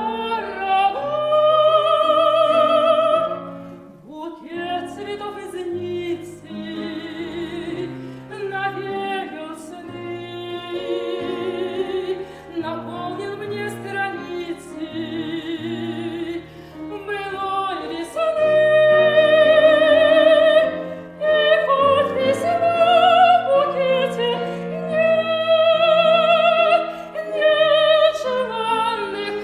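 Soprano singing a song in operatic style with wide vibrato, over instrumental accompaniment; the phrases swell louder in the second half.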